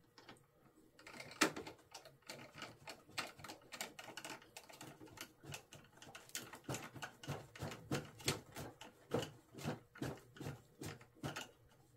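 Small hand screwdriver turning a machine screw into a metal housing in a plastic RC model tail. It makes a quick, irregular run of small clicks, a few a second, with one louder click about a second and a half in.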